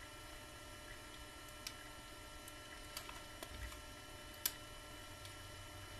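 A few light clicks and taps from a plastic action figure being handled, over a faint steady hum; the sharpest click comes about four and a half seconds in.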